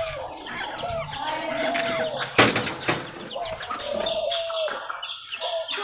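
Mixed coop birds, chickens and doves, calling with a string of short, arching calls that repeat every second or so. A single sharp knock about two and a half seconds in.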